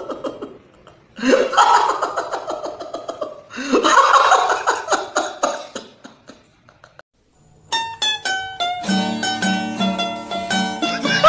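A man wailing loudly in two long outbursts. After a short pause, light plucked-string music starts about eight seconds in.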